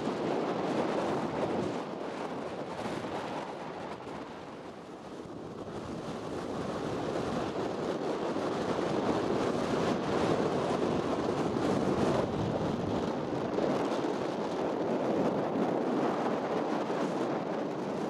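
Wind rushing over the microphone, a steady noise that eases off about four seconds in and builds back up a few seconds later.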